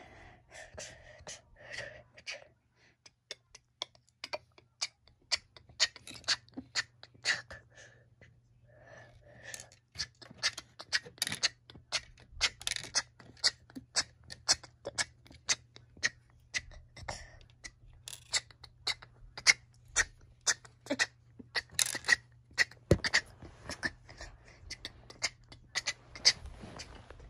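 A fast, uneven run of sharp clicks and pops, several a second, with brief stretches of voice-like sound in the first two seconds and again about nine seconds in.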